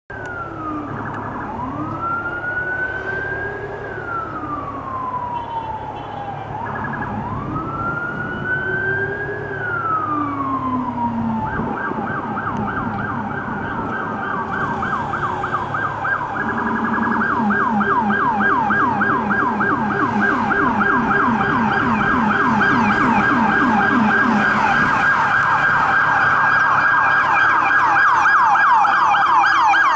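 Siren of an NYPD Emergency Service Unit Ford F550 truck responding: a slow wail rising and falling about every three seconds, switching about eleven seconds in to a fast yelp that grows louder. A lower second tone follows the same sweeps, over a steady low hum.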